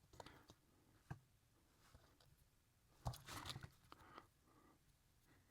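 Small plastic model-kit parts being handled and clicked together: faint clicks near the start and about a second in, then a louder clatter of clicks and rustling about three seconds in.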